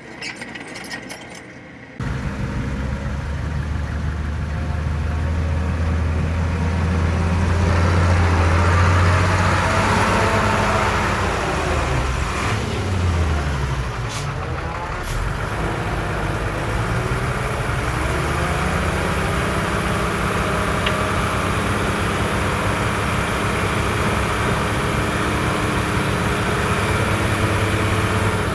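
Heavy diesel engine of earthmoving machinery running close by, coming in abruptly about two seconds in; its pitch drops and then rises again around the middle as the engine slows and speeds up.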